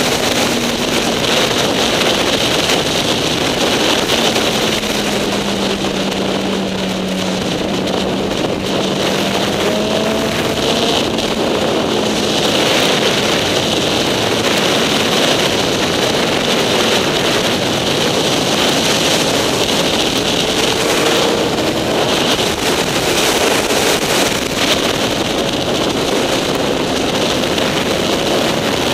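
Motorcycle engine running at road speed, buried in heavy wind rush on the microphone; the engine pitch drifts slowly up and down with the throttle through the curves.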